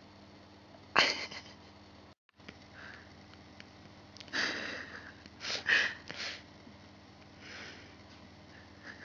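Puppy sniffing and snuffling: several short sniffs, mostly in the middle of the stretch, after a single sharp sound about a second in.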